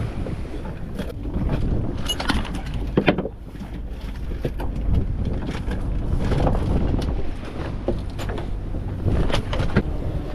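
Wind buffeting the microphone aboard a small fishing boat, over the wash of the sea. Scattered sharp knocks and clicks come as a caught sea bass is unhooked and handled on deck.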